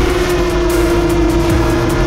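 Steady motor hum holding one nearly constant pitch, with a rough low rumble beneath it.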